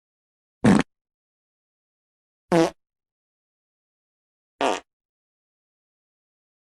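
Three short fart sound effects, each a brief burst of about a fifth of a second, spaced roughly two seconds apart with dead silence between them.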